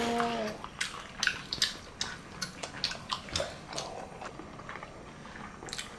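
A baby eating: a run of small, irregular clicks and smacks. A steady pitched hum stops about half a second in.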